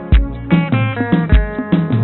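Outro music: plucked string notes over a steady low drum beat.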